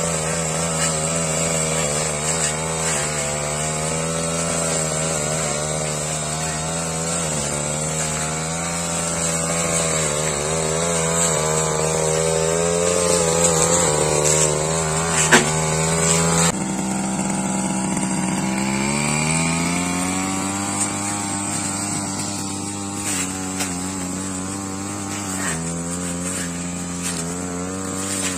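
Backpack brush cutter engine running at cutting speed as it mows grass, its note wavering with the load. A sharp tick about halfway; shortly after, the engine note drops low and then climbs back up.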